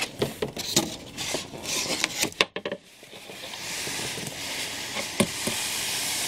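A cardboard collectible-statue box being handled and slid up off its styrofoam insert: scattered knocks and rustles of the cardboard, then, from about three and a half seconds in, a steady rubbing hiss as the box slides along the foam.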